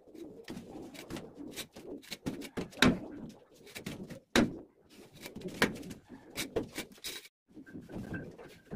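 Irregular taps, knocks and scrapes of a hand tool and a template against a wet sand-and-cement ceiling patch, with a few sharp clicks. Near the end, a tool scrapes as it carves lines into the wet mortar.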